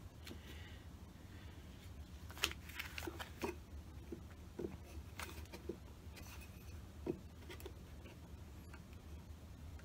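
Faint, scattered taps and light scrapes of hands handling a thin wooden strip against the top edge of an old wooden hive box. The sharpest tap comes about two and a half seconds in, over a low steady hum.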